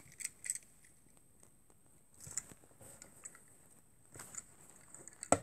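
Faint, scattered clicks and rustles of a die-cast toy car being handled and moved about on a fabric surface, with a sharper click near the end.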